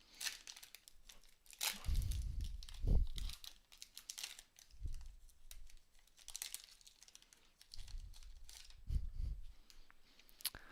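A basketball trading-card pack wrapper being torn open and crinkled by hand, in irregular crackling bursts. The busiest stretch comes about two to three and a half seconds in, with a few soft bumps of handling.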